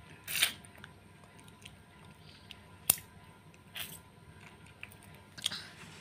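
Four short, quiet smacking sounds from a woman's lips as she kisses and mock-nibbles a baby's fingers; the one about three seconds in is a sharp click.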